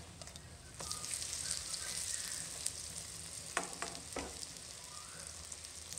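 Hot oil sizzling as a poa pitha deep-fries in an iron karahi; the sizzle swells louder about a second in as the cake meets the oil. A few sharp clicks of the metal spatula against the pan come a little past halfway.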